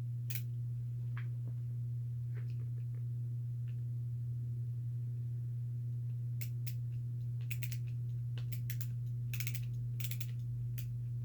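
Ratcheting screwdriver clicking as a screw is backed out: a few scattered ticks at first, then short runs of rapid clicks about once a second in the second half. A steady low hum runs underneath.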